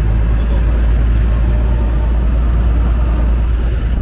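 1919 Studebaker being driven, its engine running with a steady low rumble.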